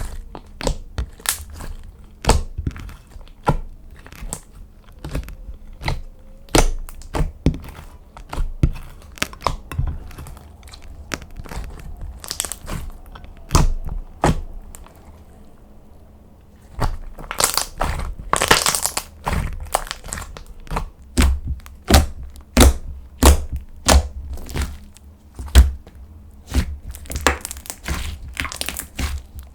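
Slime being pressed and squeezed by hand, giving a steady run of sharp clicks and crackles. Low thuds join in over the last third.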